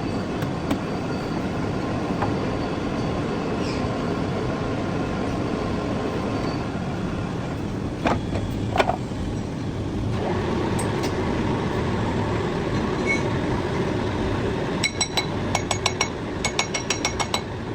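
Metal-turning lathe running with a steady mechanical noise as it machines a metal pulley, with two sharp knocks midway and a steadier tone setting in about ten seconds in. Near the end comes a quick run of a dozen or so ringing metallic clinks.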